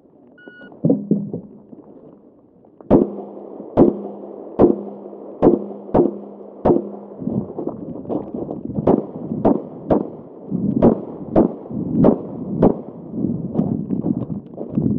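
An electronic shot timer gives its short start beep about half a second in. A couple of seconds later a Glock 19 Gen 4 MOS 9mm pistol starts firing rapid single shots, about one every half second to second, with a pause of about two seconds midway.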